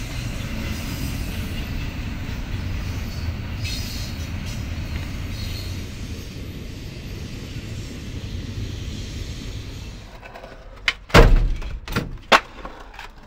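Double-stack container freight train rolling past, a steady rumble and rattle that slowly fades over the first ten seconds. Near the end, four sharp skateboard clacks and landings, the loudest about eleven seconds in.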